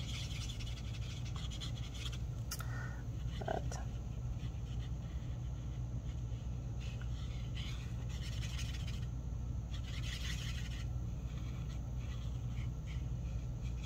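Faint scratching of a marker nib rubbing back and forth on cardstock as a stamped flower is coloured in, over a steady low hum.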